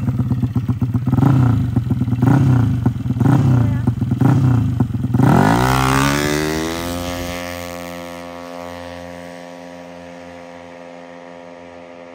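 Drag-race motorcycle engine blipped at the start line about once a second, then launched about five seconds in: the pitch rises and levels off into a steady high engine note that fades as the bike runs away down the strip.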